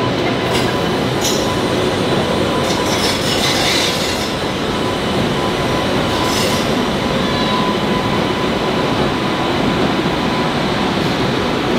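Indian Railways WAP-7 electric locomotive and its train pulling slowly into a platform: a loud, steady rumble of wheels on rail with a thin steady whine, and a few brief high screeches from the wheels and brakes in the first seven seconds as it slows.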